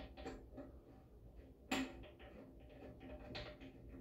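Small clicks and knocks of plumbing fittings being handled and threaded together at a toilet's water supply line, with one sharper click a little under two seconds in.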